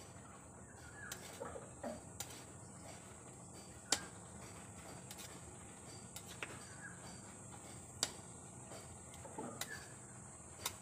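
A spatula stirring chopped young jackfruit in an aluminium pot, knocking against the pot with a few sharp clicks, the loudest about four and eight seconds in. A steady high insect buzz runs underneath.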